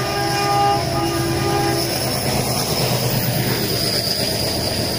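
Diesel locomotive's horn sounding, several tones at once, cutting off about two seconds in, over the steady rumble and rail noise of a moving train.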